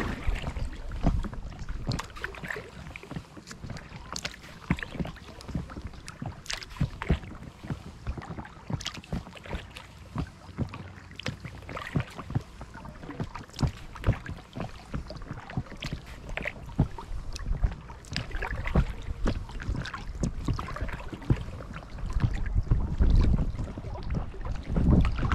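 Kayak paddle strokes from an inflatable kayak: irregular splashes and drips as the blades dip into and leave the water. A low wind rumble on the microphone grows louder near the end.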